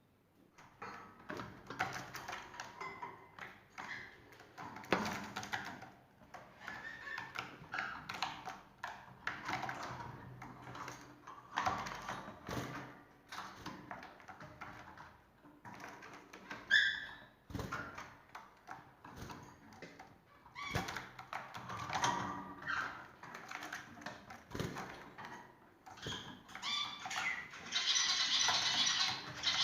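Small cage birds chirping, with many scattered light taps and knocks. The sound grows busier and louder near the end.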